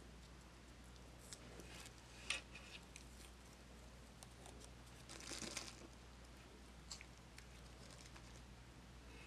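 Faint handling noises over a low steady hum: a sharp tick a little over two seconds in, scattered light ticks, and a short rustling scrape about five seconds in.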